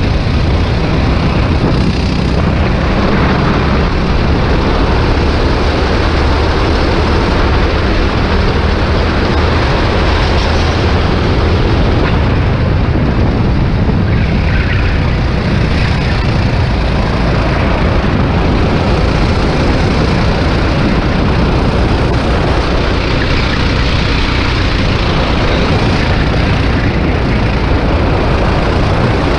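Racing kart's engine running hard at speed, heard from a camera mounted on the kart itself. Loud and steady throughout, with no let-up.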